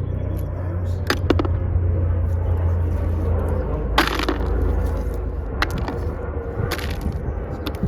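A steady low rumble with several sharp knocks and clicks over it, the loudest about four seconds in.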